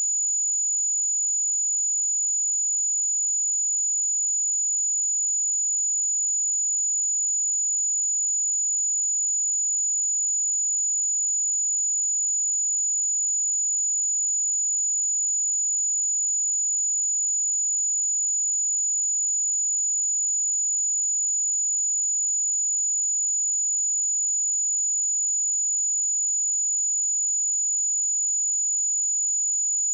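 A pure 6916 Hz sine-wave test tone: one steady, high-pitched whistle held at constant pitch and level.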